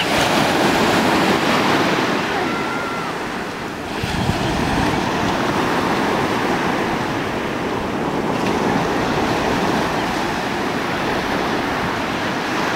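Ocean surf breaking and washing up a sandy shore in a steady rush of water, dipping briefly and swelling again about four seconds in.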